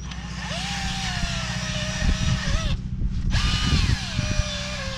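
Cordless drill spinning a wire wheel brush against rusty steel on an old Ferguson potato ridger: a motor whine that sags in pitch under load, with scraping rattle as the brush bites the rust. The sound breaks off briefly about three seconds in, then the whine starts again higher and falls back as the brush goes back on the metal.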